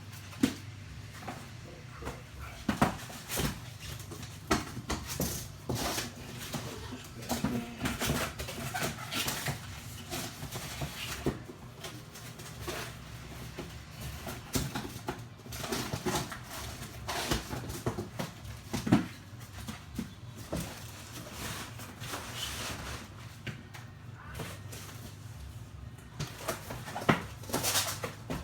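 Packaging handled as subwoofers are unboxed: scattered rustling, scraping and knocking, over a steady low hum.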